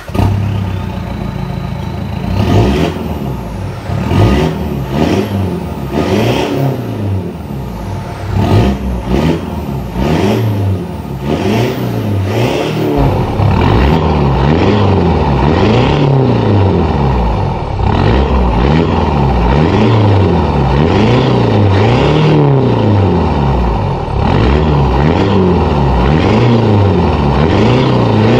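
2012 Mitsubishi Pajero's turbodiesel engine revved again and again in park through a full turboback exhaust, each blip rising and falling in pitch about once a second and reaching around 3,000 rpm.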